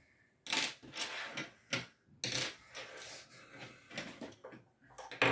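Light clicks and clatter of plastic toy french-fry sticks being drawn out of a plastic fry box and set down on a table: about half a dozen short knocks spread over a few seconds.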